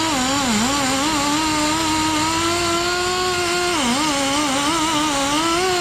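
Power tool spinning a wire wheel, a steady high motor whine whose pitch sags and wavers as the wire brush is pressed against the wheel to clean it, with a deeper dip about four seconds in.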